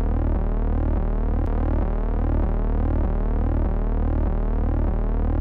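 Synthesized electronic drone: steady low sine-like tones under a faint, evenly repeating sweep.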